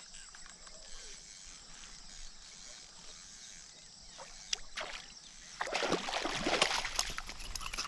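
A hooked snakehead fish thrashing and splashing at the water's surface close to the bank. The splashing starts suddenly a little over halfway in, loud and continuous, after a quieter stretch with a few faint clicks.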